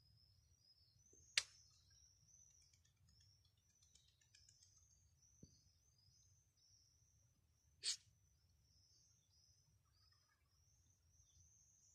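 Faint, high, chirping calls of small birds repeating throughout. Two short, sharp sounds cut through them, one about a second and a half in and a slightly longer one just before eight seconds, which are the loudest things heard.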